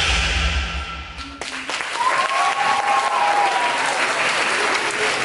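Dance music cuts off about a second and a half in, and an audience applauds. A short rising-and-falling call rings out over the clapping.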